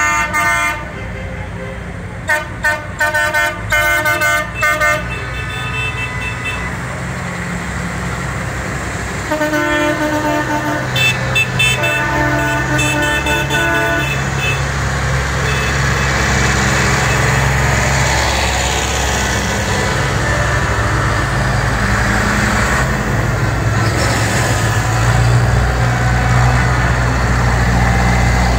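A line of tractors driving past with their engines running, and horns tooting repeatedly during the first half. The low engine rumble grows louder as the tractors draw near.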